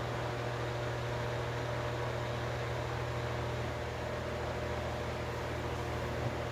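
Electric table/wall fan running steadily: a constant motor hum with a few steady tones over the even rush of moving air.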